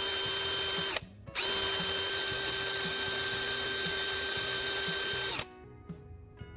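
Small electric motor spinning a sandpaper grinding disc at steady speed with a constant whine, grinding a battery's carbon rod to a point. It stops briefly about a second in, starts again, and shuts off near the end, where soft plucked guitar music takes over.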